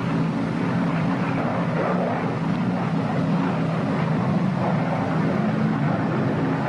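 Steady, even drone of a P-61 Black Widow's twin Pratt & Whitney R-2800 radial engines in level flight, a low hum under a hiss of noise.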